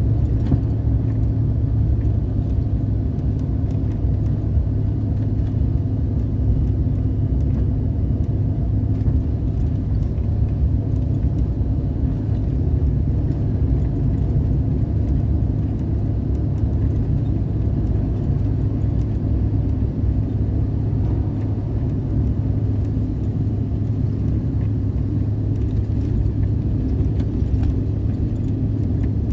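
Steady cabin noise inside a Bombardier CRJ900 in the climb after take-off: a low drone with a steady hum from its two rear-mounted turbofan engines, mixed with the rush of air past the fuselage.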